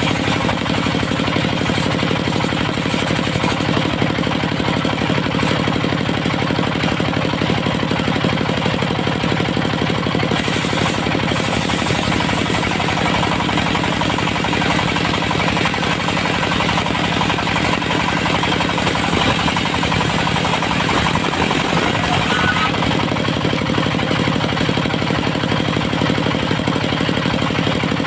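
Engine of a portable circular-saw sawmill running steadily with a rapid knocking throb. A brighter, hissier sound joins it for about ten seconds in the middle.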